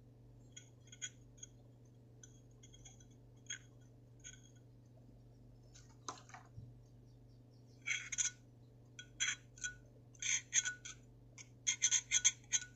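Cotton wadding being pushed and packed into the metal insert of a Zippo-style lighter: faint scattered crackles and rustles at first, a single tap about six seconds in, then quicker, louder runs of scratching over the last five seconds.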